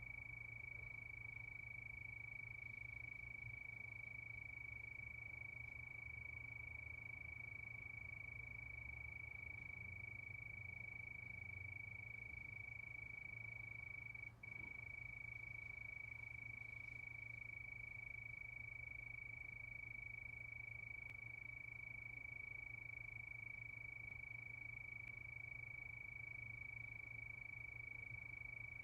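Steady chorus of crickets: one continuous high trill with no gaps between chirps, broken by a brief dropout about halfway through, over a faint low hum.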